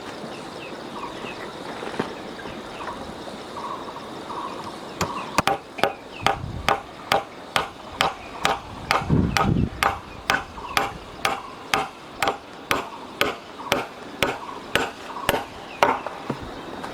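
Rapid, evenly spaced blows of a hand tool, about three a second, starting about five seconds in.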